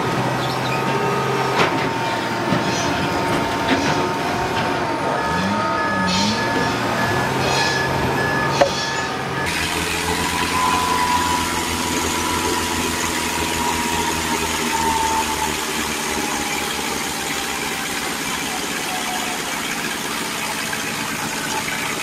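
Diesel engine of a log-handling reach stacker running while it lifts a bundle of logs, with a short repeating beep and a few knocks. About nine seconds in, a cut to a farm tractor's diesel engine running steadily under load, with a slowly falling whine.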